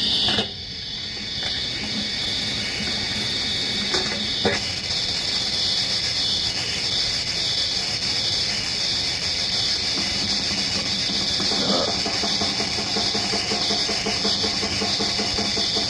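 Lo-fi rehearsal-tape recording of a black/death metal band playing a song's instrumental opening: dense distorted guitar and drums under heavy cassette hiss, with a pitched riff standing out more clearly from about twelve seconds in.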